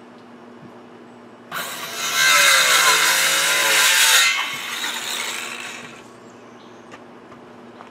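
A handheld power tool runs for about three seconds, starting about a second and a half in, its pitch sagging as it works under load, then carries on more quietly for a couple of seconds before stopping.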